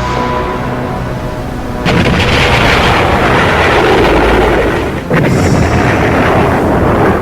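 Film sound effects of heavy explosions, like artillery blasts. A first blast bursts in about two seconds in and rumbles on for a few seconds, and a second one hits about five seconds in. A few sustained notes of film score come before the first blast.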